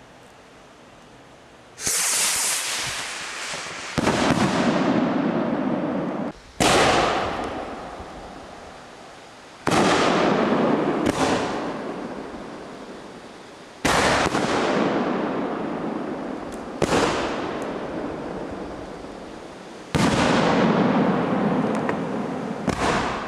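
Homemade aerial fireworks bursting in the sky, about nine sharp bangs a few seconds apart starting about two seconds in, each trailing off in a long fading echo.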